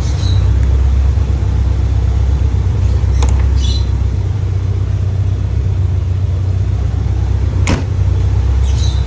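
Toyota Starlet KP61 engine idling with a steady low rumble, after being started following a long time unused. Two short sharp clicks sound about three seconds in and again near the end.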